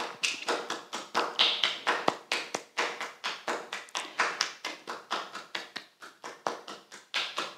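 A cupped hand patting the bare inner elbow crease in a steady rhythm, about four pats a second: self-tapping massage.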